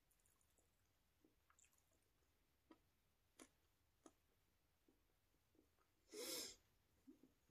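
Quiet close-up mouth sounds of someone chewing with the mouth closed: a few faint wet clicks, then about six seconds in a short, louder noisy sound lasting about half a second.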